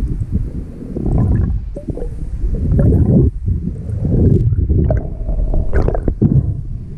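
Underwater, muffled rushing and gurgling of water moving over the camera housing as a freediver swims, in uneven low swells with a few short higher splashes or bubble pops.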